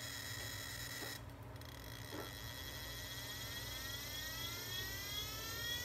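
Hard drive spindle motor spinning up with a makeshift mower blade on its hub: a faint whine of several tones that climb steadily in pitch from about two seconds in, just after a click.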